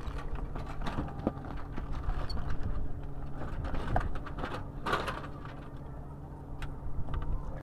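Small sailboat under way: a steady low hum with wind and water rumble, broken by a few knocks and rattles from the rigging as the crew hauls on the lines to set the sails.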